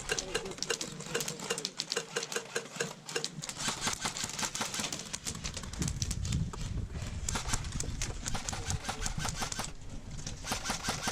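Airsoft gun firing in rapid bursts: a fast, mechanical clatter of shots running through most of the stretch.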